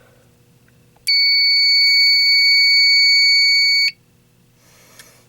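Fire alarm sounder giving one loud, steady, high electronic tone for about three seconds, starting about a second in and cutting off abruptly.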